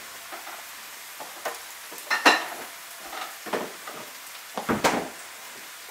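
Refrigerator door opened and shut and a glass beer bottle taken out: a handful of separate clinks and knocks, the sharpest about two seconds in.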